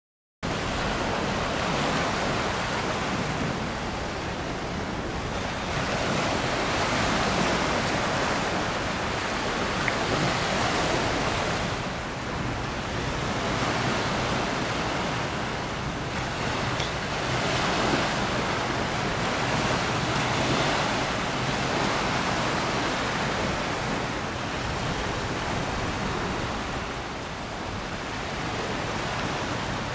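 Outdoor wind and river-water rush on the microphone. It is a steady, even noise that cuts in suddenly about half a second in, then swells and eases every few seconds.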